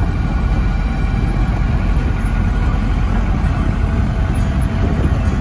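Steady engine and road noise inside a moving taxi's cabin, heaviest at the low end.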